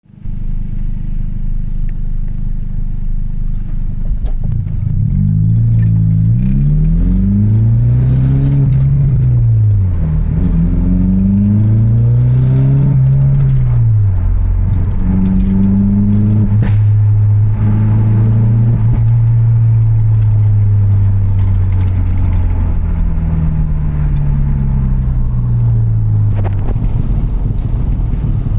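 Straight-piped exhaust of a mk1 Audi TT 180's 1.8-litre turbocharged four-cylinder, idling and then revved up and down several times, with a held higher rev in the middle.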